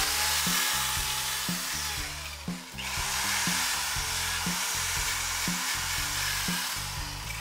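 Small handheld power tool run against the rusty rear wheel hub and drum-brake backing plate: the motor whine rises as it spins up, holds, and drops off about two and a half seconds in, then it starts again and runs through the rest, with a harsh scouring hiss of metal being worked. Background music with a steady beat underneath.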